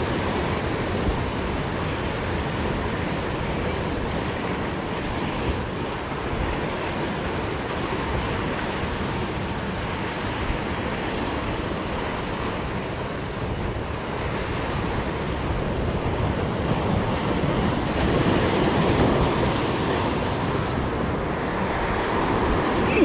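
Sea surf breaking and washing over rocks just below, a steady rush of water that swells louder about three-quarters of the way through, with wind buffeting the microphone.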